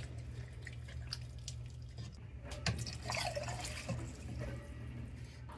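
Pot of chili simmering, its bubbles popping and plopping irregularly over a steady low hum.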